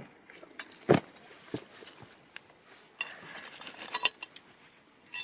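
Steel pliers clinking and scraping against a metal fitting on a smouldering LiPo safe bag: a few sharp metallic clicks, the loudest about a second in, with a short rustle a little after the middle.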